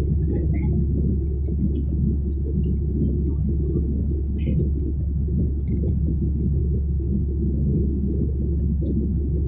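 Steady low rumble of a jet airliner's cabin in flight: engine noise and rushing air, with a few faint ticks.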